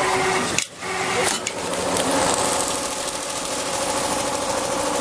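Richpeace automatic sewing machine running steadily through its stitching, with a brief drop and click a little under a second in.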